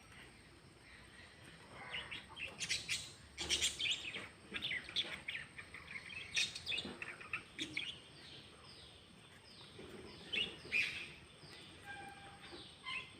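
Birds chirping: clusters of short, high calls and clicks, with a run of quick falling notes about two-thirds of the way through.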